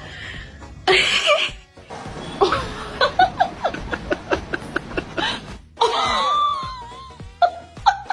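Music with laughter, including a run of short ha-ha pulses in the middle.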